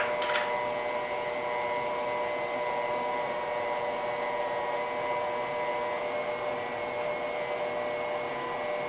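KitchenAid stand mixer with its meat grinder attachment running steadily, grinding seasoned ground pork and beef: a steady motor hum and whine. A sharp knock right at the start.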